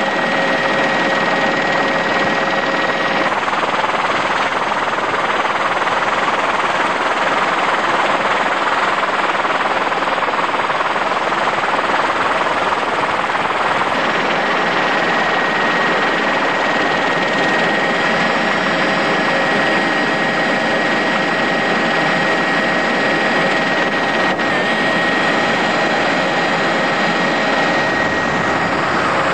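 Steady engine and rotor noise of a helicopter, heard from aboard, running evenly with a few faint held tones.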